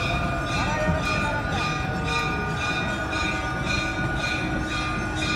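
Bells of the riverside puja ringing steadily in a rapid, even rhythm, about three strokes a second, their tones ringing on between strokes, over a dense low hubbub from the crowded ghat.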